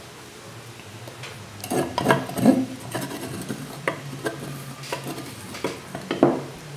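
Metal spoon scraping and tapping against kitchen vessels while spice paste is added to akra batter: irregular short scrapes and clicks, starting about a second and a half in.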